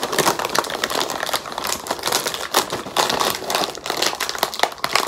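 Crinkly plastic snack packet being handled and worked open by hand: a dense, steady run of rustles and crackles.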